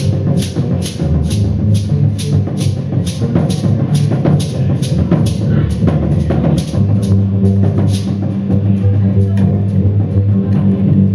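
Live band music: a steady pulse of sharp percussive strikes, about three a second, over low sustained tones. The strikes thin out and fade about eight seconds in while the low tones carry on.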